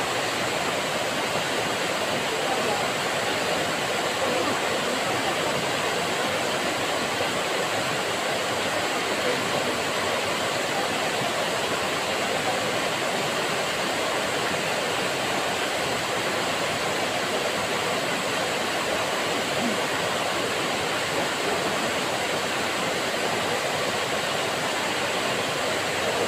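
Waterfall pouring over a rock face into a pool: a steady, even rush of falling water.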